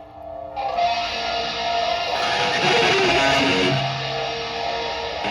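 Live band music with amplified electric guitar: a loud, dense, strummed guitar sound kicks in suddenly about half a second in and keeps going.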